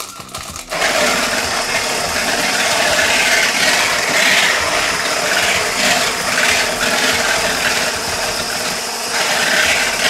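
Electric stick blender with a whisk attachment starting up less than a second in and running steadily, beating an egg white in a plastic bowl on its way to stiff peaks.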